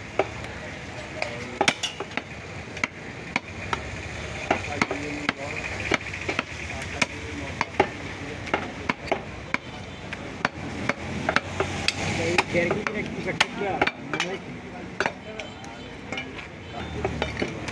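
Heavy butcher's cleaver chopping beef on a wooden log chopping block: sharp, irregular chops a few times a second.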